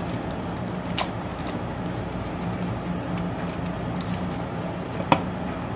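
Light handling noise of a smartphone being unwrapped from its plastic protective sleeve, with two sharp clicks, about a second in and near the end, over a steady low room hum.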